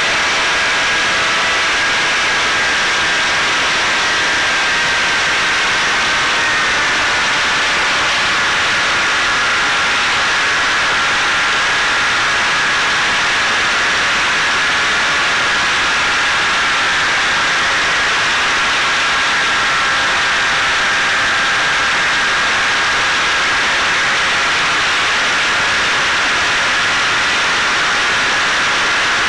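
Electric pusher motor and propeller of a Caipirinha 2 flying wing in cruise, heard from its onboard camera: a steady high whine under heavy wind rush, the whine's pitch dipping slightly about seven seconds in.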